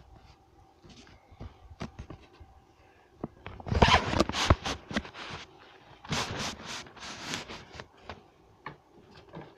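Handling noise from the recording device: a few light clicks, then two bursts of fast scraping and rubbing, each lasting under two seconds, in the second half.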